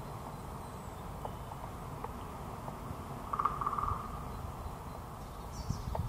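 Great spotted woodpecker drumming: one short, rapid roll of strikes on wood, under a second long, about halfway through, over a steady low background rumble. In early spring this drumming is the bird's territorial and courtship display.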